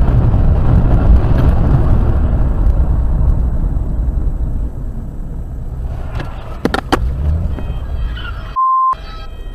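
Road and engine rumble inside a moving car, picked up by a dashcam. The rumble is steady and eases after about six seconds, with a couple of sharp clicks just before seven seconds. Near the end comes a short, steady, high beep cut in with silence around it.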